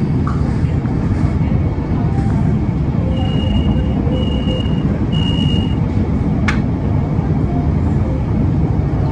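A vehicle running with a loud, steady low rumble. Three short high beeps sound in a row about three seconds in, and a single sharp click comes about a second after them.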